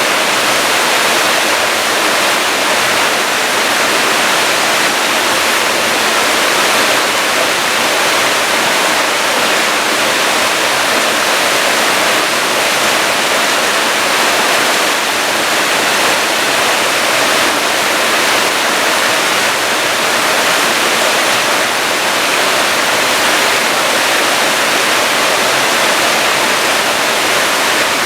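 Loud, steady rush of water pouring down a waterfall, with no breaks or changes.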